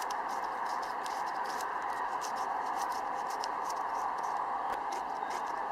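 Light rain pattering: a steady hiss with many small, irregular drop clicks.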